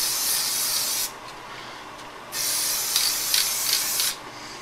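Aerosol can of spray adhesive hissing in spurts. It sprays for about a second, stops for just over a second, then sprays again for nearly two seconds before a short pause.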